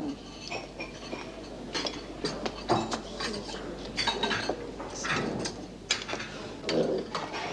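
Crockery and cutlery clinking and clattering: scattered knocks of plates, bowls and spoons, with no steady rhythm.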